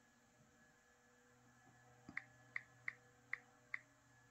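Samsung Galaxy S23 Ultra on-screen keyboard key-press clicks as a word is typed: about six soft, short ticks, starting about two seconds in, two or three a second.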